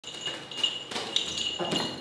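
Baby macaques scampering and tussling on a plastic floor mat: a few quick thumps and scuffles, over a steady high-pitched whine.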